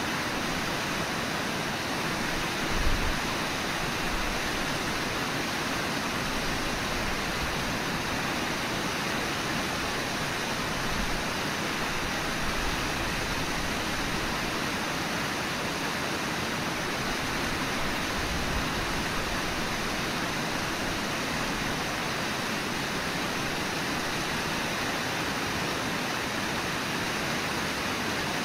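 Steady, even rush of flowing river water, with one brief low thump about three seconds in.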